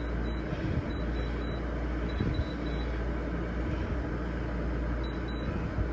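GE window air conditioner running with a steady fan and compressor hum. About ten short high beeps come in small clusters from its control panel as the temperature-up button is pressed repeatedly.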